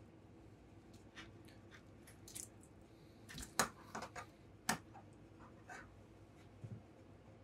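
Old car wiring loom being handled by hand: light rustles and small clicks of wires and plastic connectors, with two sharper clicks in the middle. A faint steady hum runs underneath.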